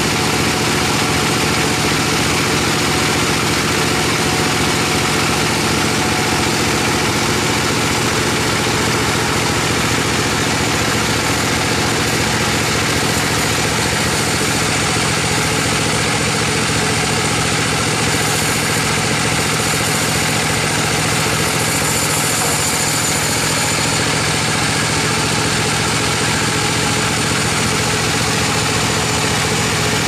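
Large band sawmill running steadily, its band blade sawing lengthwise through a big log. The machine noise is loud and unchanging throughout.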